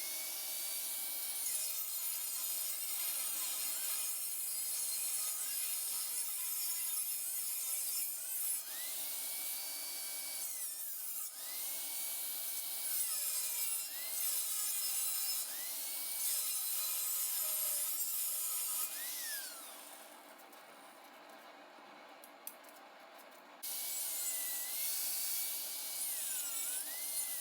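A power tool cutting the rough shape out of a steel saw blade: a steady hiss of the cut, with the motor's whine dipping and recovering again and again as the cut loads it. It stops for a few seconds past the middle, then starts again.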